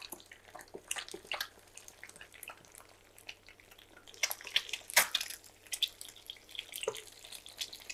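Eggs frying in oil in a nonstick pan: scattered small crackles and pops of spattering oil, with a wooden spatula scraping and pushing the eggs, and a sharper click about five seconds in.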